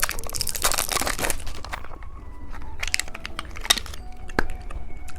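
Plastic candy packaging crinkling as it is handled, with several sharp clicks and taps later on.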